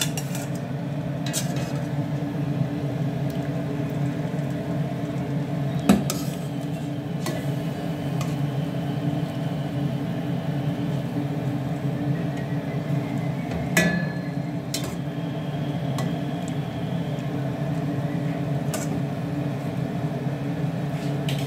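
A metal spoon scrapes and clinks against a stainless steel stockpot as boiled chicken pieces are lifted out of the broth, with a few sharp knocks, the loudest about six seconds in and again about fourteen seconds in. A steady low rumble runs underneath.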